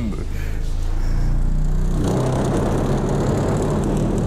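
A 15-inch subwoofer in a welded steel box with a metal port playing a low test tone: a steady deep hum with buzzing. About two seconds in it gets louder and a harsh rattling, rushing noise joins it.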